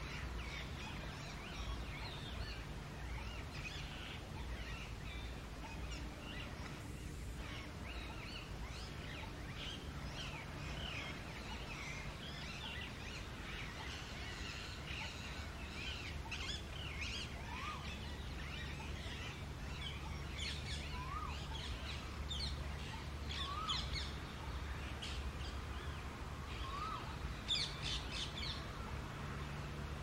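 Birds chirping and calling in many short notes, with a short rising note repeating every few seconds in the second half and a louder burst of calls about two and a half seconds before the end, over a steady low background rumble.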